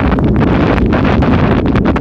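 Wind blowing on a smartphone's microphone: a loud, steady rushing noise, strongest in the low end, with no distinct bangs.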